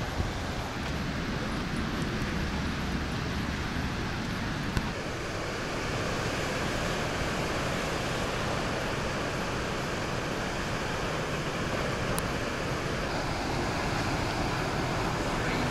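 Steady rush of ocean surf breaking, mixed with wind on the microphone.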